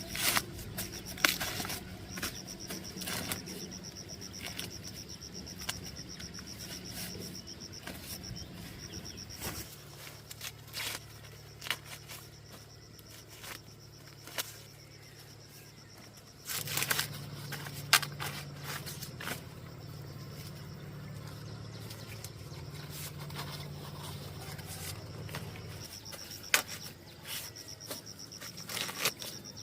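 Insects trilling: a steady, high, finely pulsing buzz that fades out partway through and returns near the end, with scattered sharp clicks and knocks of something being handled.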